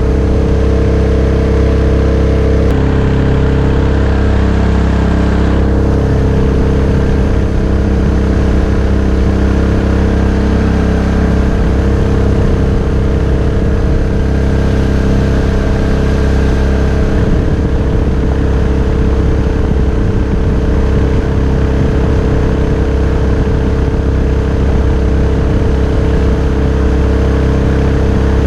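Mokai jet boat's Subaru EX21 single-cylinder engine running at a steady speed through its water-cooled muffler.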